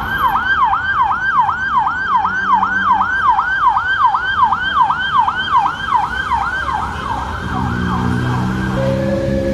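Emergency vehicle siren in its fast yelp mode, sweeping up and down about three times a second. It fades out near the end as a lower steady hum comes up.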